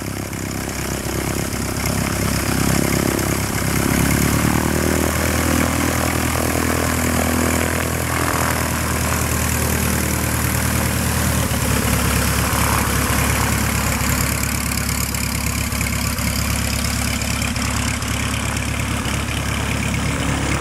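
Piper PA-18 Super Cub's piston engine and propeller running. The engine speeds up a few seconds in as power is added to start taxiing, then holds a steady note as the plane taxis past.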